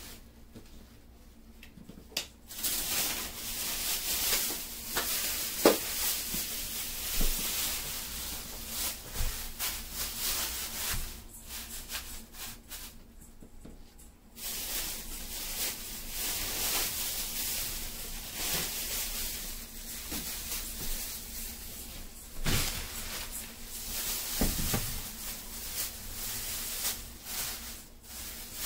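Thin plastic produce bags rustling and crinkling as groceries are handled, with a few soft knocks. The rustling pauses briefly at the start and again about halfway through.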